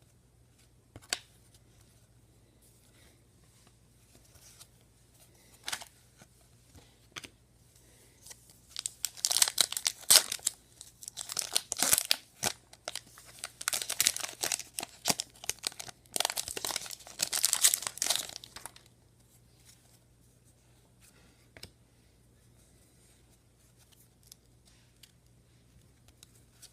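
Foil trading-card pack being torn open and its wrapper crinkled, in a run of crackling bursts lasting about ten seconds, preceded by a few faint clicks.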